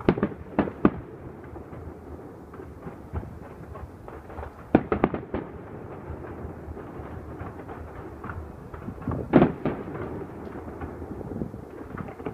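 Fireworks going off: sharp bangs from aerial shells, a few together near the start, a cluster about five seconds in and the loudest about nine seconds in, over steady crackling.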